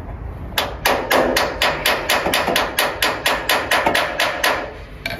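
Hammer driving a homemade conical metal wall plug through a metal plate into a drilled hole in concrete: a quick, even run of about twenty ringing blows, roughly five a second, that stops about a second before the end. The clear ring is the sign that the plug is wedging tight in the concrete and will hold.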